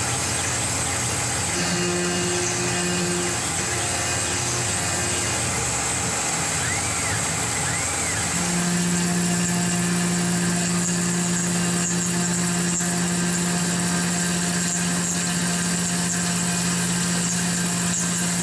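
Tormach PCNC 1100 CNC mill face-milling an aluminum plate with a shell mill under coolant spray: a steady machining hum and hiss, the hum settling into one stronger steady pitch about eight seconds in.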